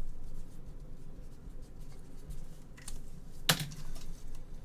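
Trading cards being handled on a table: faint handling noise, a light click near three seconds in, and a sharper tap about half a second later.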